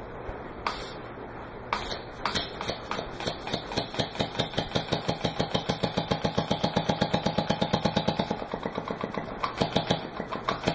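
Weed-eater two-stroke engine converted to run on compressed air, chuffing in sharp pulses as a solenoid valve, timed by a reed switch, blasts air into the cylinder and the air is exhausted each stroke. The pulses start about two seconds in, speed up to roughly seven a second, then turn uneven near the end.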